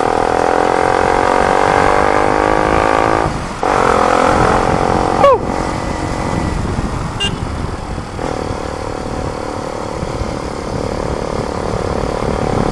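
Motorcycle fitted with a new muffler accelerating, its exhaust note rising in pitch, breaking off briefly about three and a half seconds in for a gear change and rising again. A short sharp sound about five seconds in, then the engine settles to a steadier, lower note.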